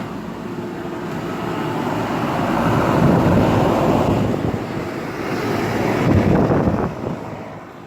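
Outdoor central air conditioner condenser units running, a steady rushing of fan and compressor noise that swells louder about three seconds in and again about six seconds in, then eases off near the end.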